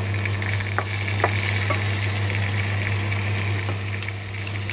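Peeled potato chunks frying in hot oil in a non-stick pan, sizzling steadily over a constant low hum, with a few light clicks of a wooden spatula against the pan about a second in.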